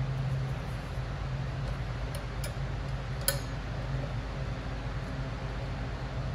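A quarter-inch hex driver turning bolts on a metal bracket, giving three light metallic clicks between about two and three and a half seconds in. A steady low hum runs underneath.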